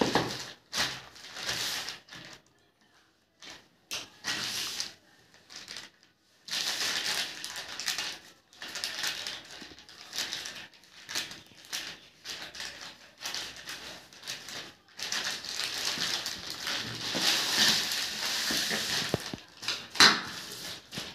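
Plastic courier mailer bag crinkling and rustling in irregular bursts as it is handled and cut open with scissors. A sharp tap near the end.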